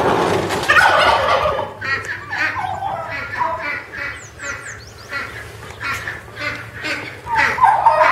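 A flock of domestic ducks and other poultry calling, with many short calls in quick succession, loudest at the start and again near the end.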